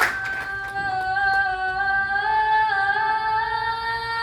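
A woman singing one long held note, the pitch stepping slightly upward as it is sustained. It begins right after a sharp hit.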